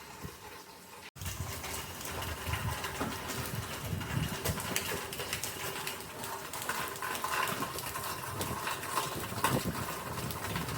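Storm wind and rain, with gusts buffeting the microphone in irregular low rumbles; the noise starts suddenly about a second in and holds steady.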